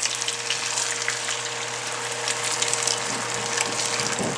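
Thin sauce poured from a plastic measuring pitcher into a hot frying pan of browned hamburger patties, the liquid hitting the hot oil with a steady crackling sizzle.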